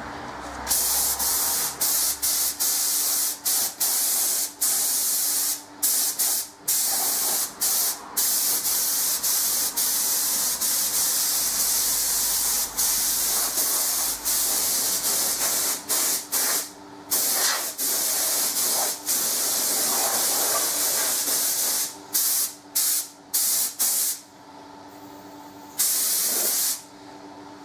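Air-fed paint spray gun hissing as it lays on accelerated paint, in long passes broken by brief releases of the trigger. The spraying mostly stops about three seconds before the end, after one last short burst. A low steady hum runs underneath.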